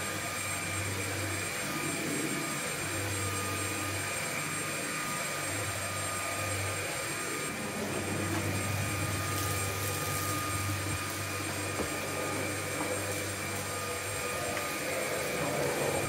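Dreametech P10 cordless stick vacuum running steadily, its motor giving a high whine over a rush of air, with a low hum that comes and goes as the powered brush head is pushed across a hard floor.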